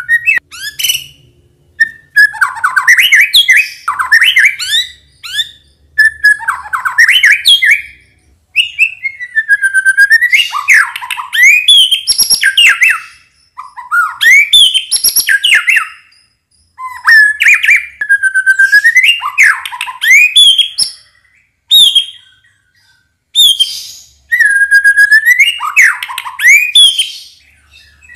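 White-rumped shama singing: about a dozen loud whistled phrases of sweeping, rising and falling notes, each a second or two long, with short pauses between them.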